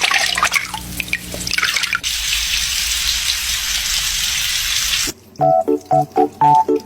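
Water from a tap splashing and dripping, then running in a steady stream. About five seconds in it cuts to light music with short, evenly spaced notes.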